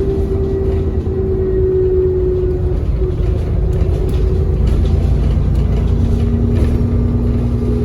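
ADL Enviro400 double-decker bus running under way, with a heavy low engine rumble. A steady whine drops slightly in pitch and fades about three seconds in, and a lower whine rises and holds from about six seconds in.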